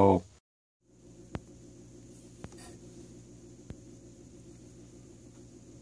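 A steady low hum with three faint, sharp clicks spaced about a second apart, as the brass clock movement is handled.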